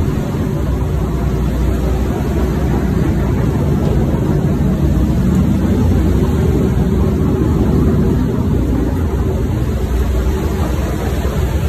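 A running engine gives a steady low rumble with a faint hum in it, unchanging throughout.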